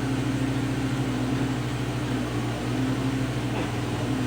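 An 80-watt CO2 laser cutter running, a steady mechanical hum with a low drone and a second tone above it, as it cuts into cedar.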